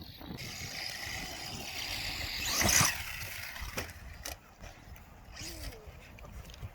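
Electric RC monster truck driving, its motor whining over the noise of tyres on rough ground. The sound is loudest and sharpest nearly three seconds in, then drops to a quieter run with a few sharp clicks.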